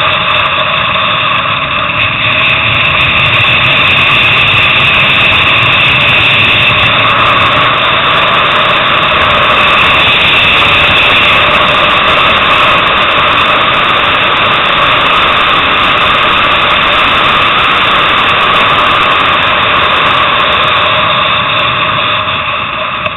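Sport motorcycle engine running hard at high revs, heard from onboard the bike at track speed. Loud and steady, dropping in level near the end.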